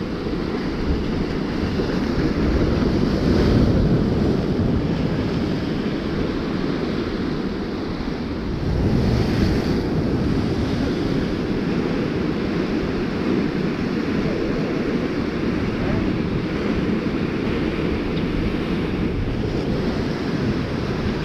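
Sea surf breaking and washing over breakwater rocks, with wind rumbling on the microphone. The wash swells louder about three and a half seconds in and again about nine seconds in.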